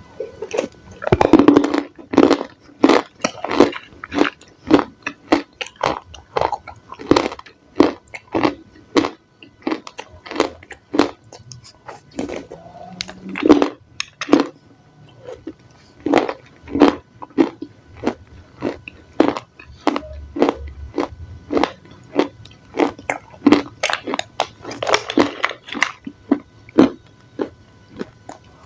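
Close-miked crunchy bites and chewing of raw salad vegetables, a rapid run of sharp crunches several times a second with brief pauses between mouthfuls.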